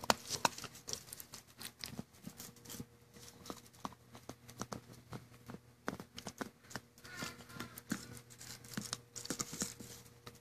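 Golden Retriever puppy chewing on a plastic toothbrush: irregular clicks and scrapes of teeth on the plastic, with wet mouth sounds.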